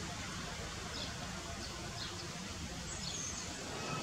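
Steady outdoor background hiss with a low rumble, and a few faint, short high chirps or squeaks scattered through, one of them a brief glide about three seconds in.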